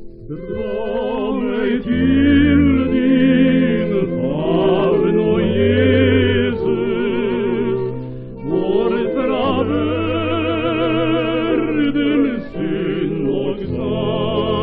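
Duet of two singers singing a Norwegian hymn with vibrato over a small instrumental trio, played from a 1936 Odeon 78 rpm shellac record. The voices come in about half a second in after the instrumental introduction, with a short breath between phrases near the middle; the sound is thin, with no highs.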